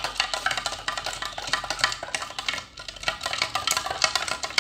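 Metal spoon stirring baking soda into water in a clear plastic cup, rapidly clicking and scraping against the cup's sides.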